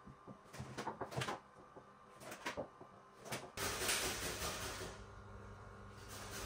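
A kitchen knife cutting tomatoes on a cutting board, with a few separate knocks. About three and a half seconds in, this gives way to food being rubbed against a metal box grater, a continuous rasping.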